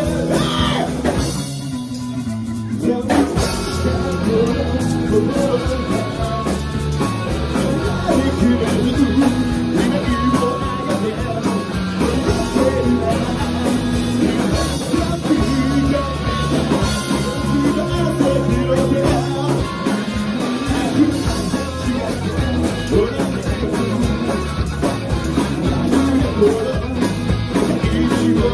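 Three-piece rock band playing live: electric guitar, electric bass and drum kit, with a male lead vocal singing in Japanese.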